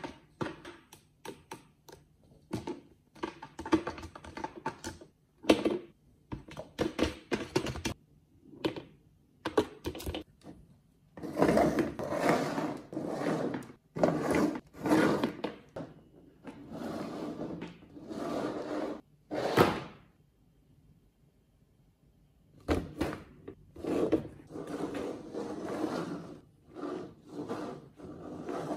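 Clear plastic lidded box being pawed, knocked and shoved across a laminate floor by cats trying to get at a ping pong ball inside it. There are irregular thunks and knocks and longer spells of scraping, and a quiet pause of a couple of seconds about two-thirds of the way through.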